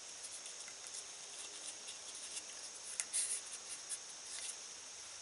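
A steady high-pitched insect chorus, with faint rustling and small clicks of bank line being handled and threaded through a cord loop on a river cane shaft. There is a louder rustle about three seconds in.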